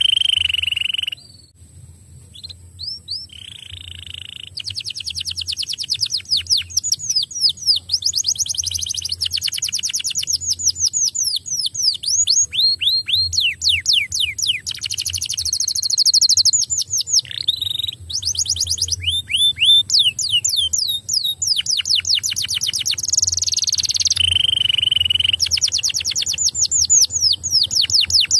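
Domestic canary singing a long song of fast rolling trills: runs of rapid repeated notes, some held on one pitch and some sweeping down. The song breaks off briefly about a second in, then resumes and carries on with only short gaps.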